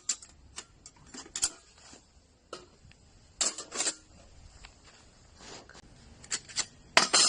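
Metal parts of a portable folding camping fire pit clinking and knocking as it is handled, in scattered light clicks, a few louder knocks about three and a half seconds in, and a louder clatter with a short ring near the end.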